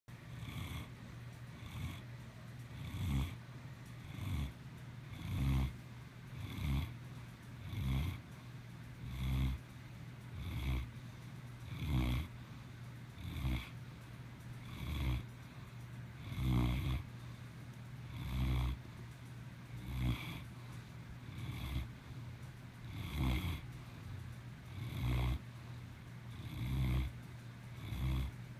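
Great Pyrenees dog snoring in a steady rhythm, about one snore every second and a half.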